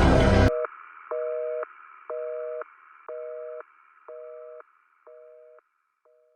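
Telephone busy signal, a steady two-tone beep of about half a second sounding once a second, getting quieter with each beep until it fades out. It comes in just as the song's music cuts off about half a second in.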